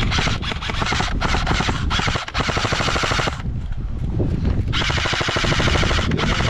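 Airsoft rifle firing on full auto in two long bursts, a rapid, even rattle of shots, with a pause of about a second a little past the middle.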